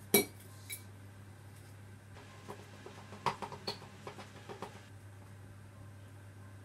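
A sharp plastic click as the lid comes off a plastic tub near the start, then a few light clicks and taps of a metal measuring spoon scooping powder from the tub, over a steady low hum.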